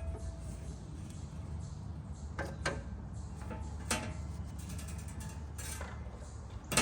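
A few separate metallic clicks and knocks of hand tools and wrenches against the mower's steel deck, spaced a second or more apart, over a steady low hum.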